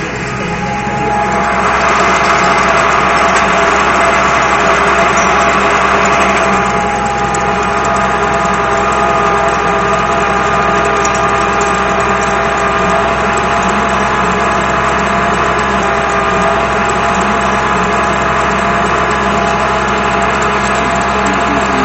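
Case IH 1056 XL tractor's six-cylinder diesel running steadily while pulling a harrow, heard from inside the cab. It grows louder and hissier for about five seconds near the start, then settles back to an even drone.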